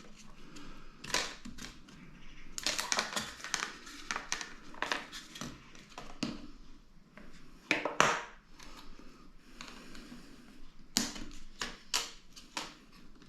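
Hands handling laptop RAM modules and their plastic packaging: scattered small plastic clicks and taps with bits of crinkling.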